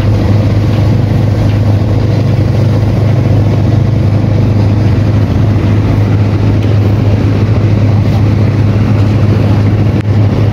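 Passenger riverboat's engine running with a steady low hum as the boat gets under way, leaving port.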